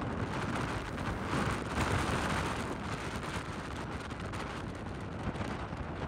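Rough storm sea surging and breaking against a stone harbour wall, a dense steady rush of water that swells a little about two seconds in, with wind rumbling on the microphone.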